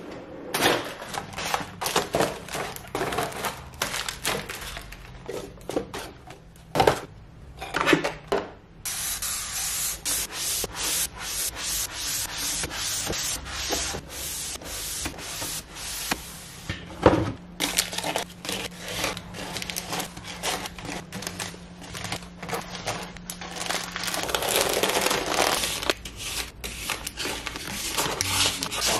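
Knocks and clatter of tea boxes and packets being handled in a wooden kitchen drawer. A sponge is then rubbed over the drawer's bare wooden bottom for several seconds, starting about nine seconds in.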